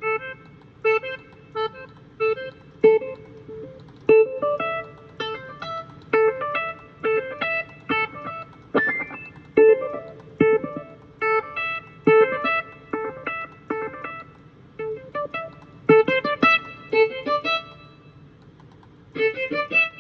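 Roland SC-55ST General MIDI sound module playing a keyboard patch: a run of short, evenly paced notes, about one to two a second, with a few sharp hits mixed in, and a quicker, busier phrase near the end.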